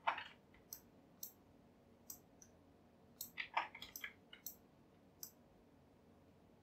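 Computer keyboard keys and mouse buttons clicking: about a dozen short, sharp, irregular clicks, with a quick cluster a little past the middle.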